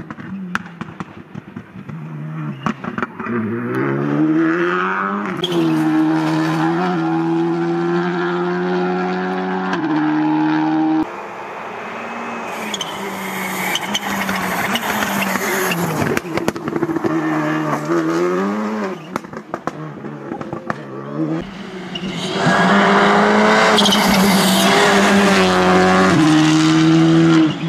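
Skoda Fabia RS Rally2 rally car, with its turbocharged four-cylinder engine, driven hard on a tarmac test stage. The engine note rises and drops again and again through gear changes, and the sound jumps abruptly to another pass about a third and about three quarters of the way through. The loudest pass comes near the end.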